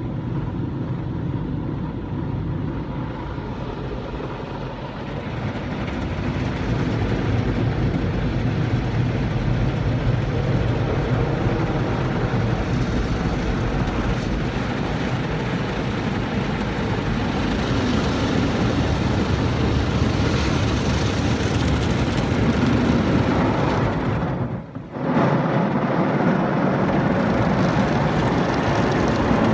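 Automatic car wash heard from inside the car's cabin: water jets spraying and drumming on the windscreen and body in a steady rush that builds over the first several seconds. It drops out for a moment late on, then starts again.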